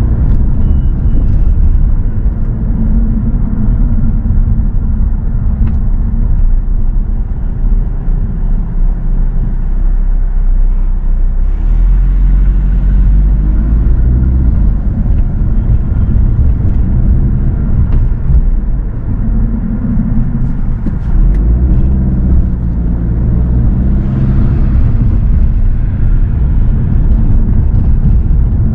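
Car driving, with a steady low rumble of road and engine noise. A hiss rises briefly twice, about twelve seconds in and again near the end.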